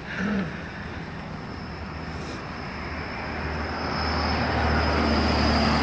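Road traffic: a motor vehicle approaching, its engine hum and tyre noise growing louder over the last few seconds.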